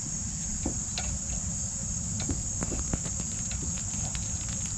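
Crickets chirring steadily at a high pitch over a low background rumble, with a few faint light clicks of screws and collar parts being handled while the screws are threaded in by hand.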